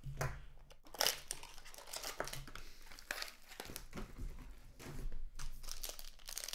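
Plastic wrapping crinkling and tearing in irregular crackles as a sealed trading card box or pack is opened by hand.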